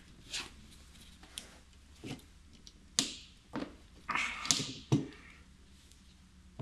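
Renault Megane windscreen wiper arm being set back onto its spindle over the plastic scuttle cover: a handful of scattered light knocks and clicks, with a short scrape about four seconds in.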